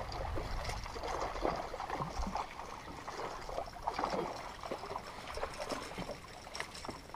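Water lapping and slapping against a bass boat's hull, with a low wind rumble on the microphone in the first couple of seconds. Sharper splashing comes near the end as a hooked fish thrashes at the surface beside the boat.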